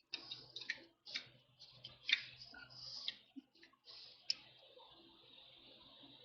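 Faint scattered clicks and short scrapes of hand work at the rear brake bleeder, with a sharper tick about four seconds in, followed by a faint steady hiss.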